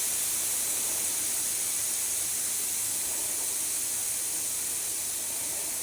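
Air hissing steadily out of an e-bike tire's inner tube as it deflates, fading slightly.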